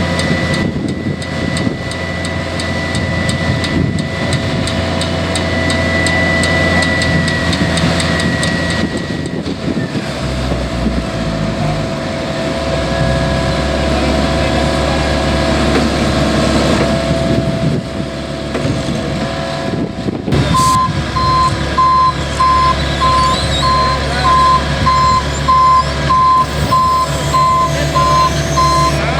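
Heavy asphalt paving machinery running with a steady engine hum. About two-thirds of the way through, a reversing alarm starts beeping about once a second.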